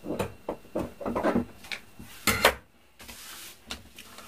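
Scissors snipping through fabric in a run of uneven cuts, then a brief pause and fainter sounds of fabric and paper pieces being handled on a table.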